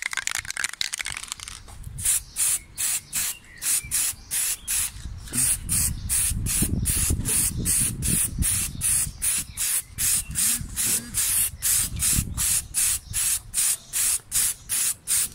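Aerosol can of peelable black rubber coating spraying in short, quick bursts, about three hisses a second.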